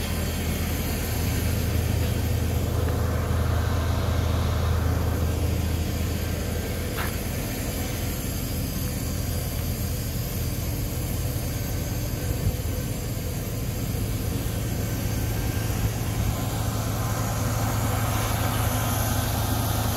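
Large diesel engine idling steadily, a low hum.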